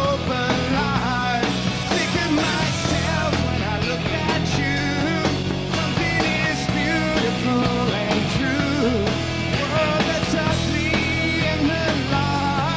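Rock band playing live, with electric guitars, bass and drums under a male lead vocal singing throughout.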